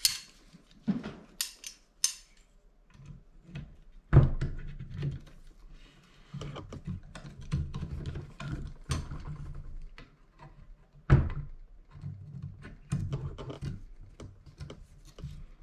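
Spanner wrench clicking and knocking against the metal cover plate of a kayak pedal drive as it is fitted and turned to snug the housing. Lighter clicks and rattles, with a few sharp knocks, the loudest about four and eleven seconds in.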